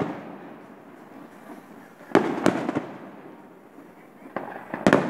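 Aerial fireworks shells bursting overhead. A cluster of sharp bangs comes about two seconds in and another near the end, each trailing off after the blast.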